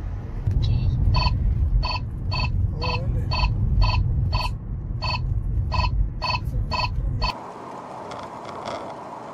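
E-ACE G07 dash cam/radar detector sounding its alert: short identical beeps about twice a second, warning of an approaching speed camera, over car cabin road noise. The beeping cuts off after about seven seconds, leaving fainter, steady road noise.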